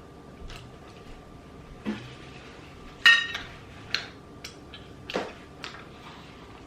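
Eating utensils clinking against a dish: several separate sharp clinks, the loudest about three seconds in, with a brief ring.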